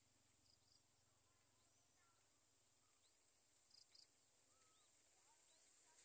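Near silence: faint outdoor ambience with a steady high hiss and a few faint, short bird chirps, plus two soft clicks a little after the middle.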